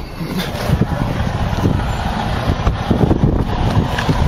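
Rumbling road and wind noise from inside a car moving on a snowy road, with irregular low thumps and wind buffeting the phone's microphone.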